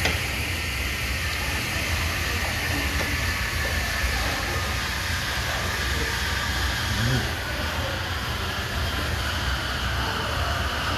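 Steady low hum and hiss of restaurant room noise, unchanging throughout.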